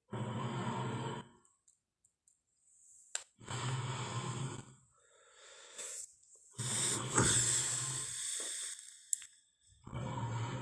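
Tyrannosaurus rex sound effects: a series of deep growling roars, each a second or so long with short gaps between them. The longest and loudest roar comes about seven seconds in.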